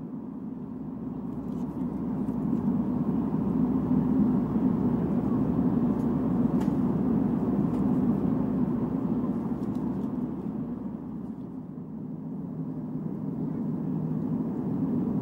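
Airbus A320 cabin noise in flight: a steady low drone of engines and airflow that swells slightly and eases off again, with a few faint clicks.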